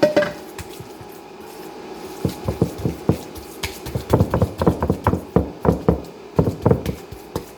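Kitchen utensils knocking on a baking pan and mixing bowl as thick oatmeal batter is scraped and spread into the pan. A single sharp clink opens it, then from about two seconds in comes a run of irregular thuds and taps, several a second.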